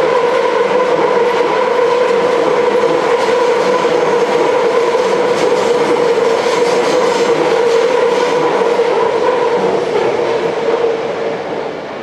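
Tokyo Metro 10000 series ten-car electric train running through the station without stopping, its wheels clicking over the rail joints, with a steady whining tone throughout. The sound fades over the last second or two as the train leaves.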